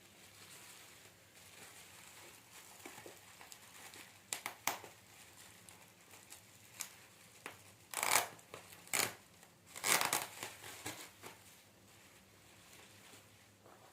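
Packaging being handled and crinkled, with irregular crinkling and tearing bursts coming in clusters, loudest in the second half.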